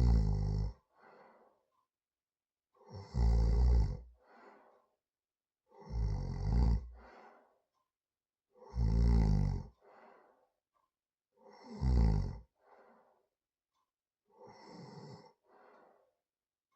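A person snoring heavily: a loud, low, rattling snore about every three seconds, each followed by a shorter, softer breath sound. The last snore is quieter than the others.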